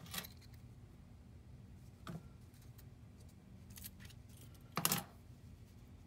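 Hands handling a lanyard charging cable: a few short clicks and rattles of its plastic connectors and metal clasp as the connectors are unclipped from their clip holder, the loudest about five seconds in.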